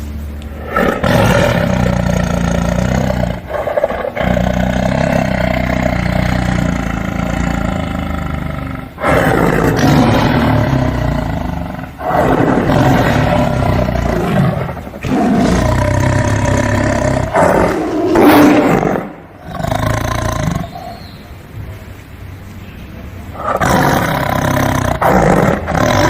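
Tiger roaring, a series of long, growling roars of a few seconds each with short breaks between them.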